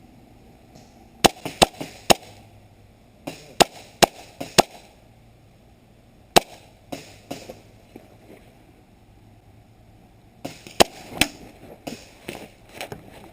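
Gas airsoft pistols firing: sharp cracks in quick groups of two or three, a single shot after a pause, then a faster run of shots and fainter pops near the end.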